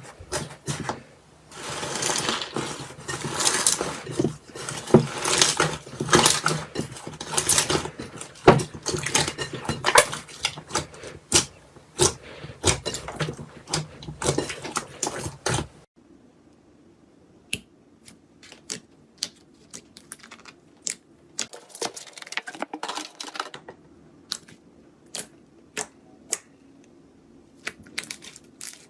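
Slime being squeezed and poked by hand, giving dense crackling clicks and pops. About halfway through the crackling stops abruptly and turns to sparse, quieter single pops.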